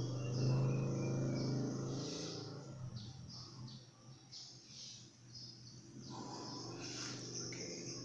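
Birds chirping repeatedly in short high calls. Under them runs a low droning hum, loudest in the first two seconds, then fading and swelling again near the end.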